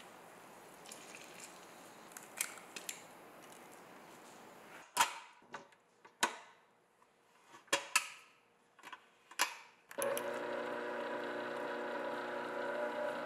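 Sharp metal clicks and knocks as the dough hook is fitted onto a stand mixer, then, about ten seconds in, the stand mixer's motor starts and runs steadily on low speed with a humming whine.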